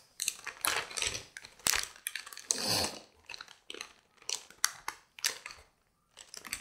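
Crinkling and rustling of a motherboard's metallic anti-static bag as the board is handled and lifted out of its cardboard box, in irregular bursts with a few sharp clicks.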